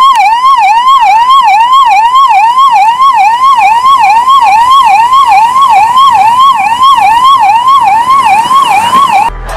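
Electronic emergency-vehicle siren in a fast yelp, its pitch swinging up and down about two and a half times a second. It cuts off suddenly just before the end.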